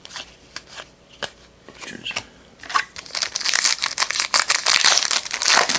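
Trading cards being handled with a few sharp clicks. Then, from about three seconds in, the wrapper of a Panini Prestige football card pack is torn open and crinkled loudly.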